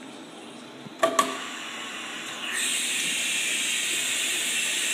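Pneumatics of a DMS 5-axis CNC machining center at its tool changer: two sharp clacks about a second in, then a steady hiss of compressed air starting about halfway through.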